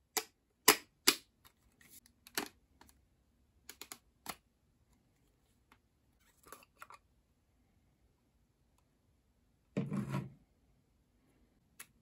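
Plastic parts of an Autobot VX handheld vacuum clicking and rattling as it is taken apart by hand: the clear dust cup is separated from the motor body and the filters are pulled out. Three sharp clicks come in the first second or so, then scattered lighter clicks, and a longer scraping rub about ten seconds in.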